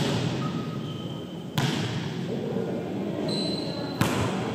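Volleyball struck twice, about two and a half seconds apart, each a sharp hit that echoes around a gymnasium.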